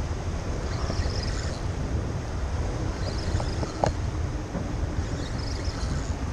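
Wind buffeting the microphone in a steady low rumble, with choppy water lapping and splashing in recurring bursts every second or two. A single sharp click a little under four seconds in.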